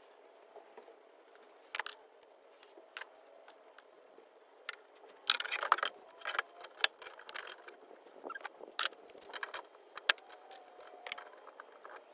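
Scattered clicks, taps and light metal rattles from hands working on a Renogy 1000W inverter and its 12-volt cable terminals. The sounds are sparse at first and come thick and fast in the middle and latter part, as the red positive cable is fitted.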